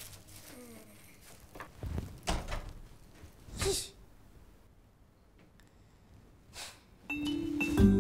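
A girl's sharp, annoyed huff ("Huh!") about three and a half seconds in, between a few soft knocks and rustles. Background music starts near the end.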